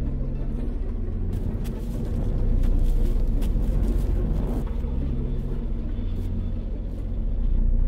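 A steady low rumbling hum, with scattered crackles and rustles from about a second in.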